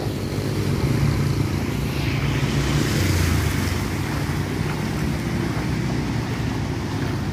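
A motor vehicle's engine running as it moves through floodwater, with water washing and splashing. The splashing swells about three seconds in.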